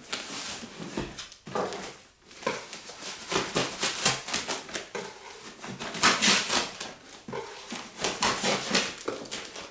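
Packing material and cardboard being pulled apart and handled as the furnace is unpacked: irregular rustling, crinkling and scraping strokes, some with a squeaky edge.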